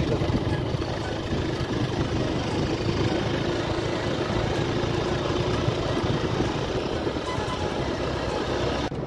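Motorcycle engine running steadily under way, with road and wind noise. The sound breaks off sharply near the end.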